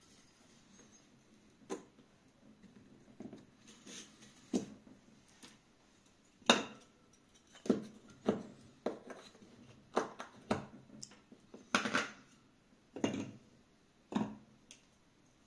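Pliers gripping and prying small nails out of a thin wooden board: about a dozen irregular sharp clicks and knocks of metal on nail and wood, the loudest about six and a half seconds in.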